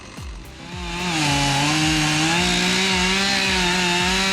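Chainsaw engine coming up to full speed about a second in and running hard, its pitch dipping and recovering as it cuts into wood.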